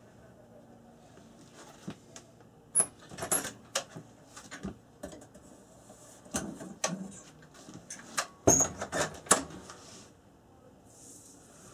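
Irregular sharp metal clicks and clanks from an Evenheat electric heat-treating kiln's door being opened and steel tongs drawing out a red-hot O1 tool steel blade for quenching. The loudest clanks come near the end.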